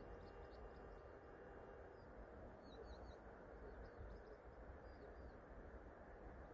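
Near silence: a faint steady outdoor hiss with a few soft, high bird chirps, a small cluster about three seconds in and another near five seconds.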